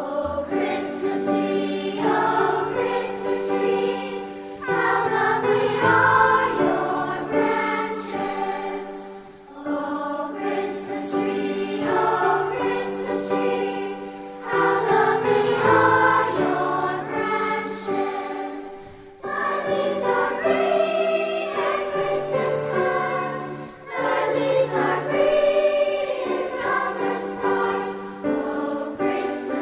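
Several voices singing together in harmony like a choir, in phrases of about five seconds with short dips between them.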